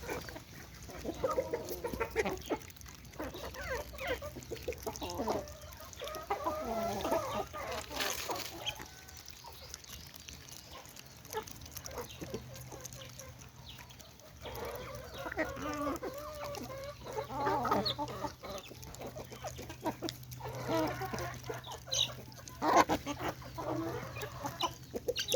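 Domestic chickens clucking, several short calls at a time in bursts separated by quieter pauses.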